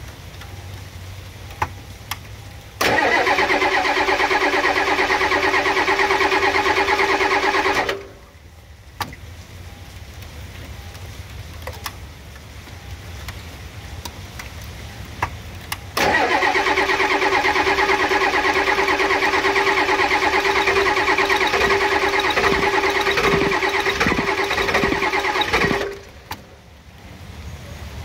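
Starter motor cranking the Ford 7.3L IDI diesel V8, once for about five seconds and again for about ten seconds. Both attempts stop abruptly without the engine catching and running, with a few uneven thumps near the end of the second attempt.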